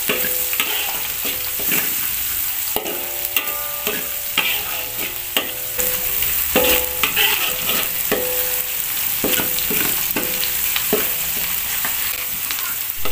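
Crushed garlic sizzling in hot oil in a metal wok, with a metal spatula scraping and knocking against the pan at irregular strokes, about one a second; each knock leaves the wok ringing briefly.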